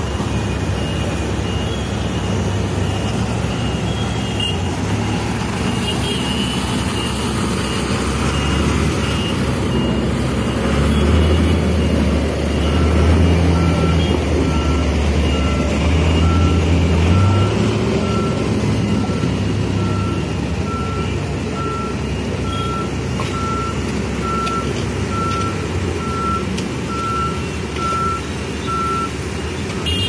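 Reversing alarms on construction machinery beeping about once a second, a higher-pitched one at first, then a lower-pitched one from about twelve seconds in until near the end, over the steady running of heavy diesel engines that grows louder for a few seconds around the middle.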